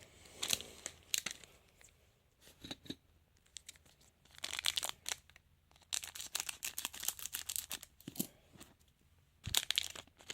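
A trading-card pack wrapper being torn open and crinkled, in several separate bursts of sharp tearing and crackling with short quiet gaps between.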